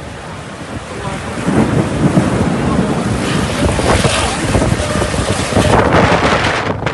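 Storm wind buffeting the microphone: a loud rushing noise that swells about a second and a half in and stays strong.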